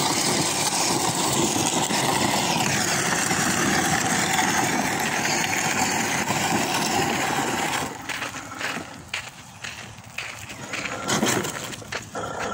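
Battery-powered ride-on toy tank driving over gravel: its electric drive motors run and its wheels roll and crunch on the stones in a steady noise. About eight seconds in the noise drops away, leaving a few scattered knocks and clicks.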